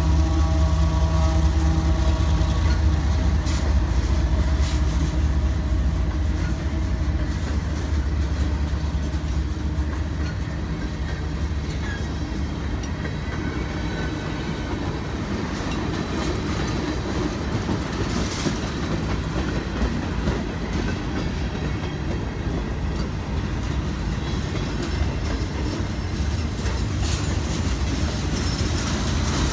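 A GE ES44AH diesel locomotive, running as a mid-train distributed-power unit, passes close by, its V12 engine droning for the first couple of seconds before fading. Then a long string of loaded freight cars (tank cars and boxcars) rolls by with a steady rumble of steel wheels on rail, clacking over the joints, with a few sharp clanks.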